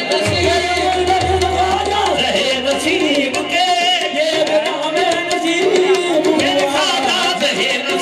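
Qawwali music: voices singing with harmonium and tabla keeping a steady beat.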